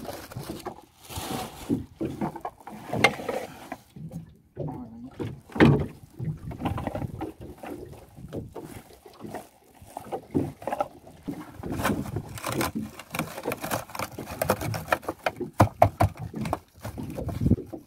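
Lumps of charcoal knocking together and a woven plastic sack rustling as charcoal is handled over a small grill. The wire grill grate rattles near the end.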